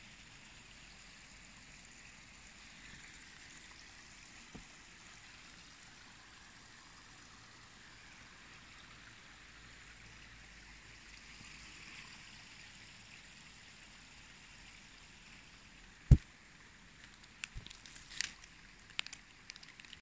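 Snow meltwater trickling and running in a steady stream. Near the end comes one sharp knock, followed by a few scattered clicks.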